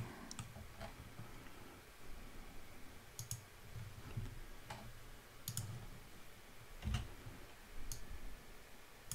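Computer mouse and keyboard clicks during 3D modelling work: scattered, irregular single clicks, a few in quick pairs, faint against a quiet room.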